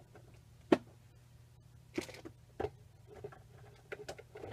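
A few light clicks and knocks of craft supplies being handled on a work table, the sharpest about three-quarters of a second in, over a faint steady hum.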